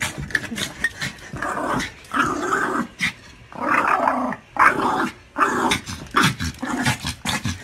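Small dog growling and barking in a string of short, agitated bursts.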